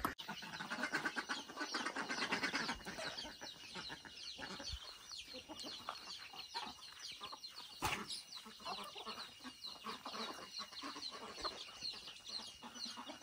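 Hens clucking, strongest in the first few seconds, over many small chicks peeping in rapid high chirps without a break. A single brief knock about eight seconds in.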